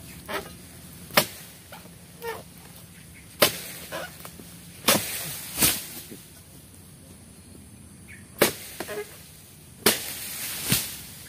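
A long-handled harvesting pole chopping into oil palm frond stalks: about seven sharp hits at uneven intervals, some trailing off in a brief crackle.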